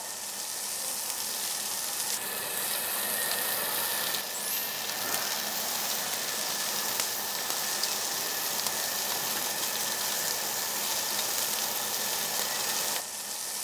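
Pieces of black-pork shoulder rack sizzling steadily on a hot tabletop grill plate.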